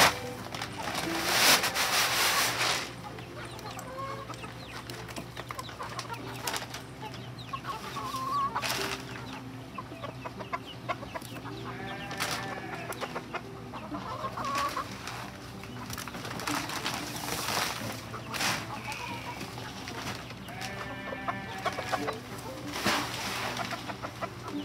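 Hen clucking and calling several times in short bursts, with a loud flurry of wing-flapping in the first couple of seconds. Light rustling and clicking of paper feed sacks and feed pellets runs underneath.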